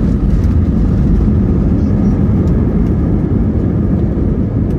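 Steady, loud low rumble inside the cabin of an Airbus A321 airliner: engine and airflow noise during the arrival.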